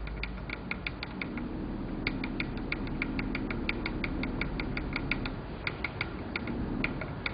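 Rapid clicking of the solder pot temperature controller's key being pressed over and over, about five or six clicks a second, over a low steady hum.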